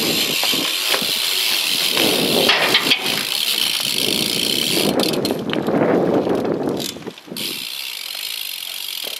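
A BMX bike being ridden: tyres rolling on pavement, with a few sharp clicks about five seconds in, and the sound dropping off abruptly about seven seconds in.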